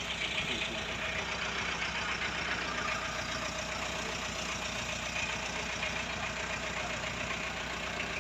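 Chevrolet LUV pickup's engine idling steadily.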